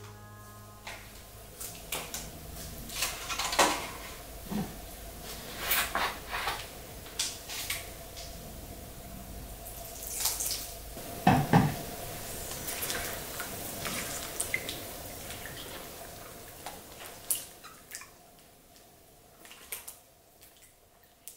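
Kitchen work at a counter: dishes and utensils clinking and knocking, with liquid poured from a bottle into a glass bowl of water holding strawberries and cherry tomatoes, the loudest stretch about halfway through. The sounds thin out to scattered drips and taps near the end, over a faint steady hum.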